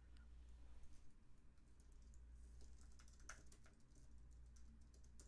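Faint typing on a computer keyboard: a run of quick key clicks starting about a second in, thickest in the middle.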